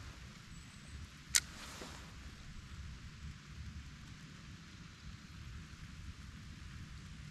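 Steady outdoor hiss with a low, unsteady wind rumble on the microphone, broken once by a single sharp tap about a second and a half in.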